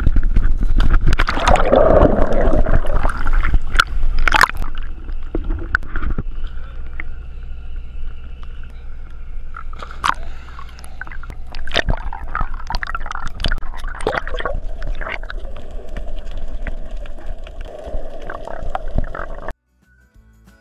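Seawater splashing and sloshing around a camera at the surface as scuba divers jump in off a dive boat: a big splash about two seconds in, then gurgling and slapping water, with more sharp splashes around ten to fourteen seconds in.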